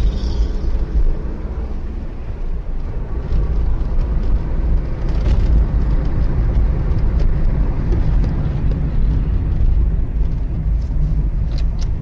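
Steady low rumble of a car driving along a road, picked up by a dashcam microphone inside the cabin, with a few faint ticks near the end.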